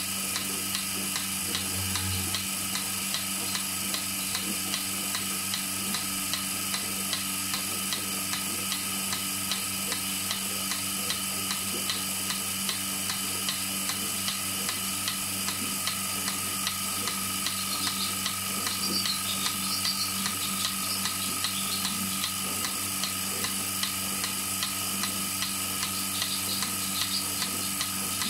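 Milking machine running on a cow: a steady hum from the vacuum pump with the pulsator's regular ticking.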